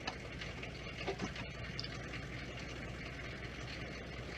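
Duramax diesel pickup engine idling steadily, with a few faint clicks.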